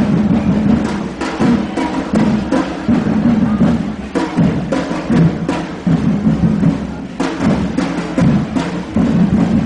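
Drums and other percussion played by a marching group, with loud, repeated hits.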